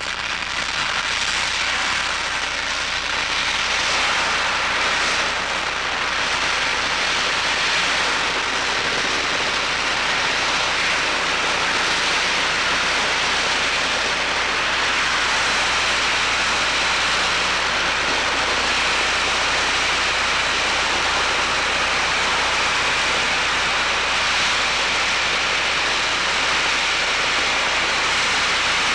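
A steady, loud hissing rush of noise that holds without a break.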